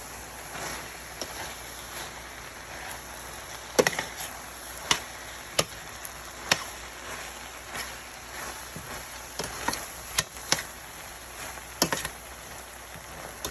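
Shrimp fried rice being stir-fried in a pan: a utensil knocks and scrapes against the pan in irregular sharp strikes, over a faint steady sizzle.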